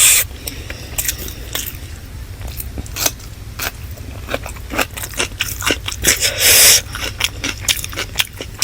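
Close-miked chewing of chicken biryani: wet mouth clicks and smacks throughout, with a louder, longer crunchy bite about six and a half seconds in.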